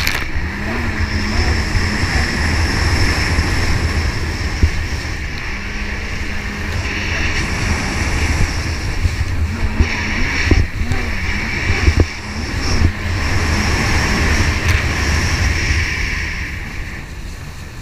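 Jet ski engine running out on the water, its pitch rising and falling with the throttle, under a heavy rumble of wind and water on the microphone. A few sharp thumps come in the second half.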